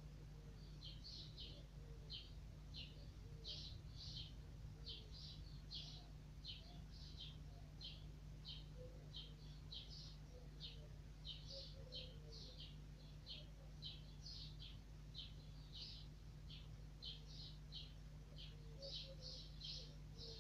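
Faint, quick chirping of a small bird, two or three short chirps a second throughout, over a steady low hum.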